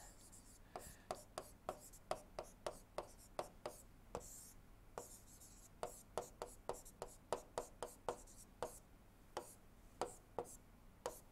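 Faint, irregular taps and clicks of a stylus tip on a tablet screen, a few a second, as an equation is written out in handwriting stroke by stroke.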